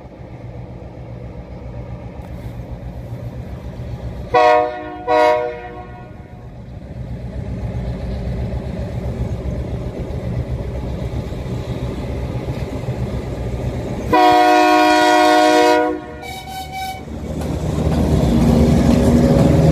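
Train horn sounding: two short blasts about four seconds in, then one long blast of about two seconds near the end, followed by a brief, fainter one. Under it runs the low, steady rumble of a train, growing louder near the end.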